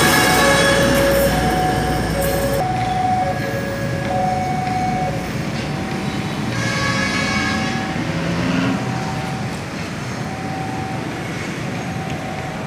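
Level-crossing warning alarm sounding two alternating tones in turn. For the first couple of seconds the last car of a Railink airport train rumbles past, and the train noise stops about two and a half seconds in.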